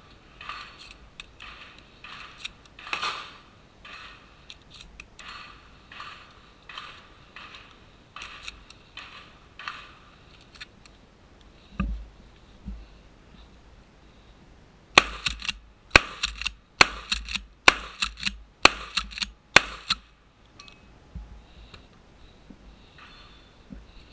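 Shotgun being loaded, shells clicking in one after another about twice a second. Then, a few seconds later, a rapid string of loud shotgun shots, with clacks of the action in among them, over about five seconds.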